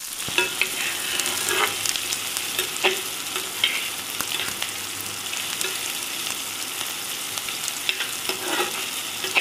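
Sliced onions sizzling steadily in hot oil in a nonstick kadai, stirred with a spatula that scrapes against the pan now and then.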